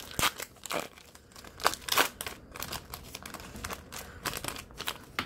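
Foil wrapper of a trading card pack crinkling and crackling in the hands as it is opened and the cards are pulled out, in irregular rustles.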